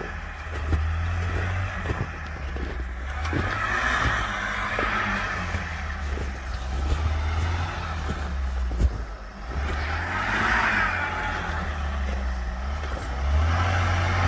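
UAZ 4x4 engine labouring and revving up and down as it drives through deep snow towing a loaded trailer, with swells of rushing noise and a few sharp knocks, loudest near the start.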